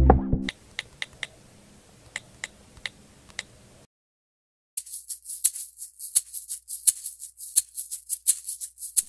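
A few faint, sharp ticks, then a fast, high-pitched rattling like a shaker.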